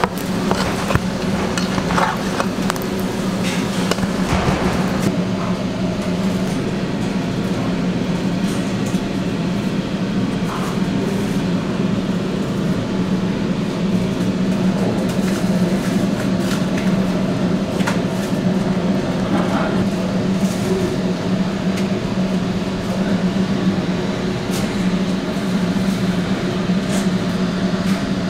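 Steady low hum of running kitchen equipment, with a few light metallic clinks and knocks of the pizza pan and utensils in the first few seconds.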